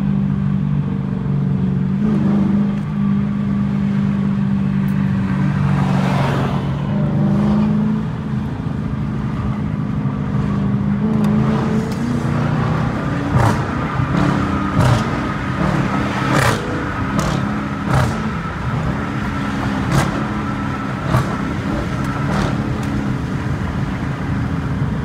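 Dodge Challenger R/T's 5.7-litre Hemi V8 heard from inside the cabin, running steadily while cruising in traffic, its note shifting after the first third. A few short, sharp clicks come in the second half.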